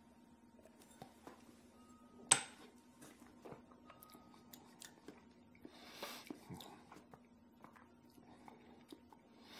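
Quiet whiskey-tasting sounds: faint mouth and lip clicks as a sip of bourbon is held and tasted, with one sharp clink of the tasting glass being set down about two seconds in and a breath out around six seconds. A low steady hum lies underneath.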